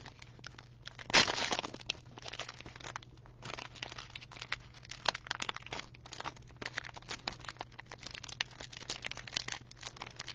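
Clear plastic cellophane wrapper of a trading-card pack crinkling and crackling as it is handled and opened, with one louder rip about a second in.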